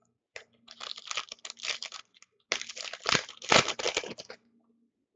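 Plastic wrapper of a Panini Contenders hockey card pack being torn open and crinkled, in two spells of crackling that stop a little after four seconds.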